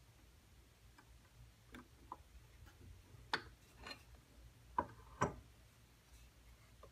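Light clicks and knocks of a wooden spinner blank and jig blocks being shifted by hand on a drill-press table: about six short taps, the three loudest between about three and five and a half seconds in, over a faint steady low hum.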